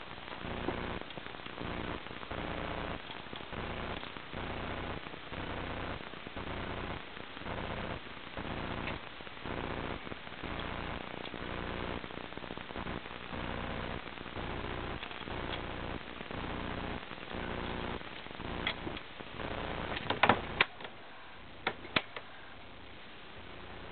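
Steady low hum with light ticking as stitches are moved with a transfer tool on a knitting machine's latch needles. Several sharp metallic clicks from the needle beds come near the end.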